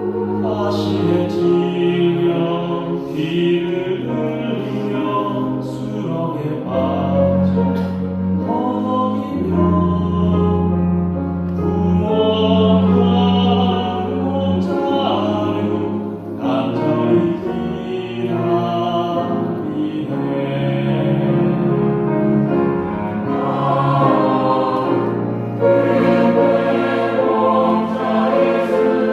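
Church choir singing a sacred anthem in held, slowly changing chords over a low sustained accompaniment.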